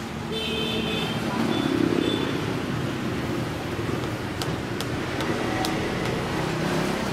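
Steady background road-traffic noise, with a few light clicks about four to six seconds in.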